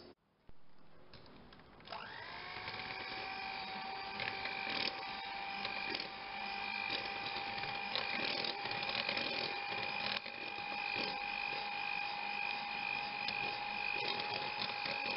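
Electric mixer whisking egg whites and sugar for meringue in a stainless steel bowl. It starts about two seconds in, its motor winding up to a steady whine at low speed. Light clicks run through it.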